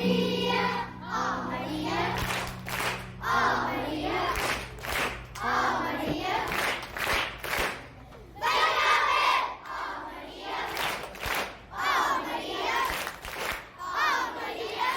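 A group of children's voices singing in short phrases with brief pauses between them, over a steady low accompaniment that fades out about three seconds in.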